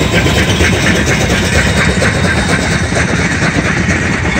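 Steam locomotive standing with steam up: a steady rumble and hiss.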